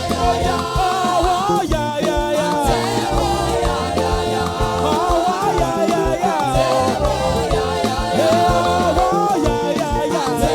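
Live church praise band music with singing, a melody carried over a steady, evenly pulsing beat.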